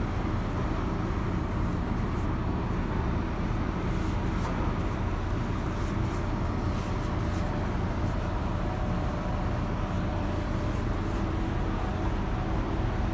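A steady, low mechanical hum, with no change in level, of the kind given off by a large ship's machinery and ventilation on deck.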